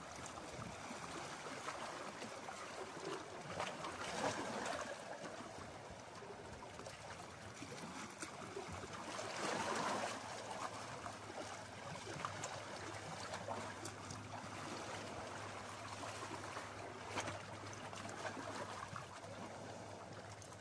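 Small sea waves lapping and splashing against shoreline rocks, a continuous watery wash that swells louder about four seconds in and again around ten seconds in.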